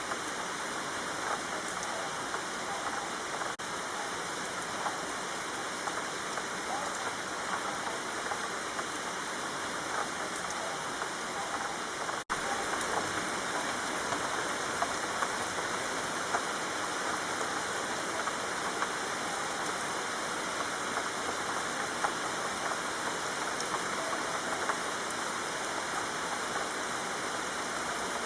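Steady rain falling, an even hiss with a light patter of drops. About twelve seconds in there is a momentary break, after which it comes back slightly louder.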